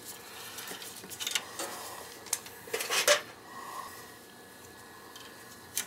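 Light metallic clicks and scrapes of hand work at a boiler's gas valve, the strongest cluster about three seconds in, as the pressure-test fitting is pulled from the valve's test port and the port plug is put back.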